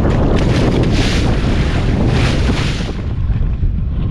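Strong wind buffeting the microphone over choppy sea washing against a small boat's hull, with two gusty surges of hiss; about three seconds in, the sound turns duller.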